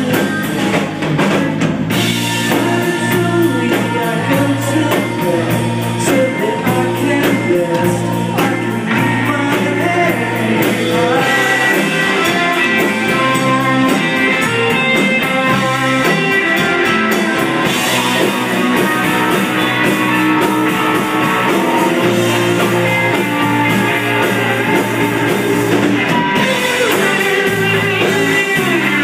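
Rock band playing live: electric guitars, bass guitar, keyboards and drum kit, with a steady fast beat on the drums.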